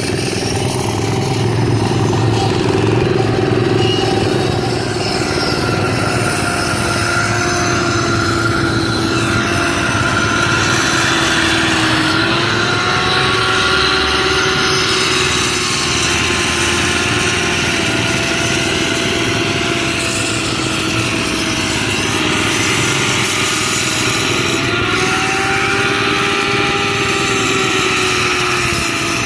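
A small engine running continuously, its pitch wavering slowly up and down.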